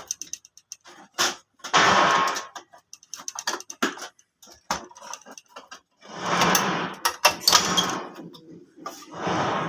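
Plastic housing panels of a Brother DCP 7055 laser printer being unlatched and pulled off by hand: scattered sharp clicks of the locking tabs, with three stretches of plastic scraping and sliding, the longest from about six to eight seconds in.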